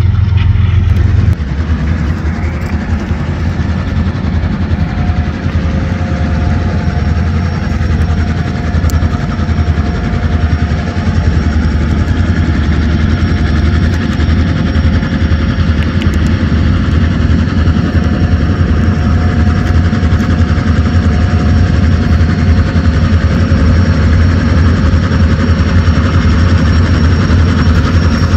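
Two EMD SD38-2 diesel locomotives with 16-cylinder two-stroke engines, notched up and working hard to pull a train up a grade: a loud, steady low throb.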